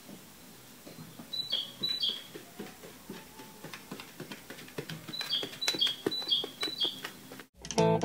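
A puppy's claws click on a tiled floor as it walks, with short high two-note chirps several times. Guitar music starts near the end.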